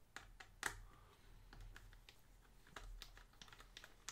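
Faint, scattered small clicks and taps as fingers work an M.2 drive loose from a laptop's drive slot, the sharpest click under a second in.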